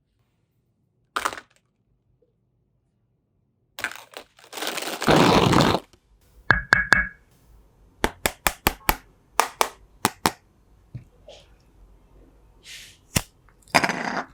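A run of sharp cracking clicks, about eight in quick succession, preceded by a longer rustling noise, with scattered smaller ticks after.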